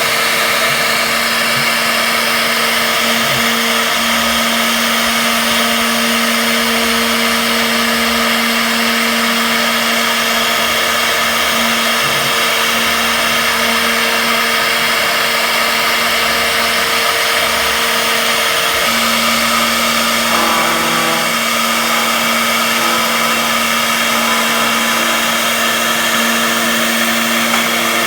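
CNC router spindle running steadily with a constant whine over a loud, even rush of noise, its tone shifting slightly about two-thirds of the way through.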